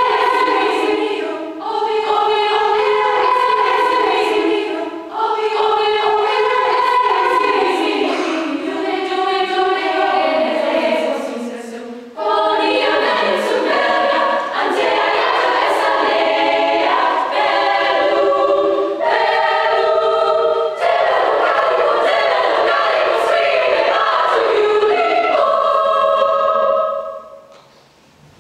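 Female-voice choir singing in several parts: sustained chords that shift from phrase to phrase, with sharp consonants. The final chord ends about a second before the close.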